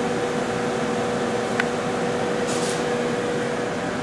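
A powered-up Femco HL-25 CNC turning center sitting idle: a steady electrical hum with a few even tones over a fan-like rushing noise. There is a single faint click about a second and a half in, and a brief hiss a second later.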